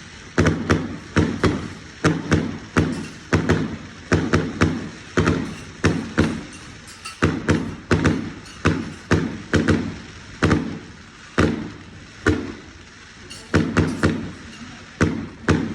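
Fireworks going off in a rapid series of sharp bangs, about two a second, each followed by a low rumbling tail, with a short lull about eleven seconds in.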